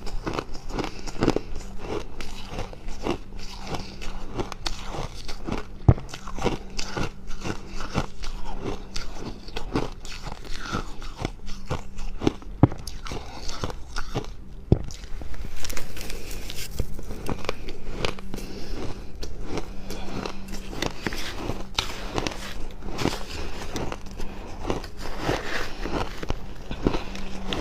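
Close-miked biting and chewing of fluffy freezer frost: a dense, irregular run of dry crunches that goes on without a break, over a steady low hum.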